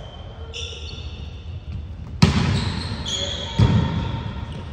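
A volleyball struck twice, about a second and a half apart, each hit sharp and echoing in a large gym, with sneakers squeaking on the hardwood court.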